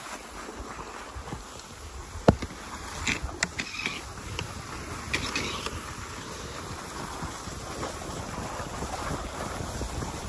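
Cross-country skis sliding over groomed snow, with wind on the microphone, a steady rushing hiss. A few sharp clicks cut through it, the loudest about two seconds in, with more a second and about three seconds later.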